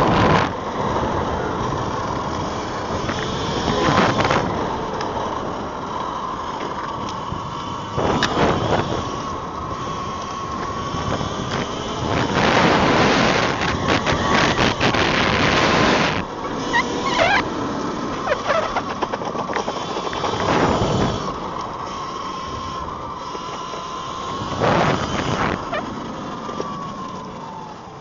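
Electric motor of an E-Ride Pro SS 3.0 electric dirt bike whining under way, its pitch drifting up and down with speed, under heavy wind and ground noise on the microphone. The noise surges louder several times, longest about halfway through.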